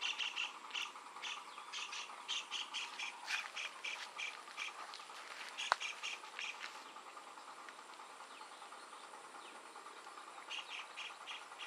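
Rapid runs of short high chirps, about four to five a second, over a steady high insect drone; the chirping stops a little past halfway and starts again near the end. A single sharp click sounds about halfway through.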